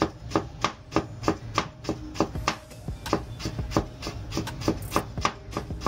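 Chinese cleaver slicing ginger on a wooden chopping board: sharp, even knocks of the blade striking the board, about three a second.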